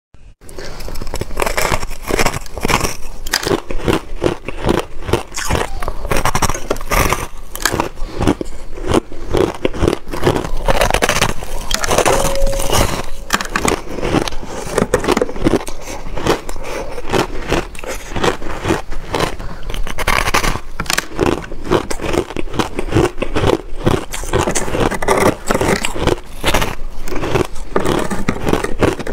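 Close-miked biting and chewing of powder-coated reshaped ice, a dense, continuous run of crisp crunches and crackles.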